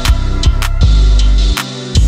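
Background music with drum hits and a heavy bass line.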